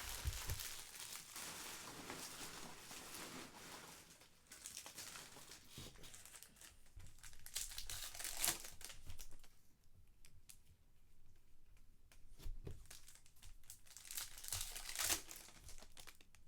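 Trading card pack wrappers being torn open and crinkled, with handling of the cards. The crinkling is steady for the first few seconds, then comes in separate bursts.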